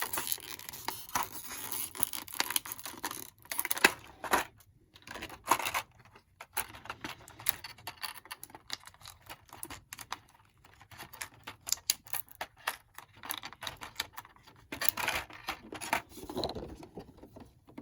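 Small plastic action figure and its accessories being handled and posed by hand: scattered clicks, taps and scratchy rubbing of hard plastic parts and joints, with a few louder clicks.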